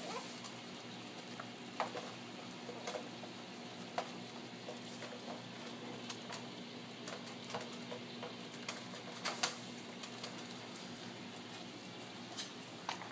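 Irregular light clicks and taps of small dogs' claws and paws on a tile floor and wire crate, a few louder taps near the middle, over a steady hum.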